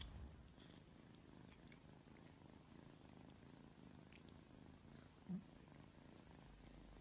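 A cat purring faintly and steadily, with one brief louder low sound about five seconds in.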